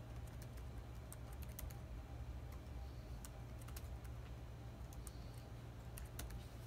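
Computer keyboard keys clicking in irregular runs as someone types, over a steady low hum.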